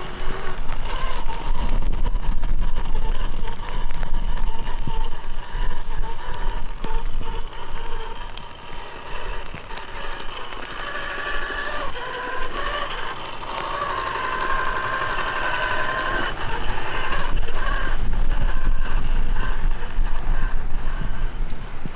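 Electric whine of an RC rock crawler's sensored brushless motor and geared drivetrain as it crawls over wet rock, the pitch shifting with the throttle and strongest in the middle. A steady low rumble runs underneath.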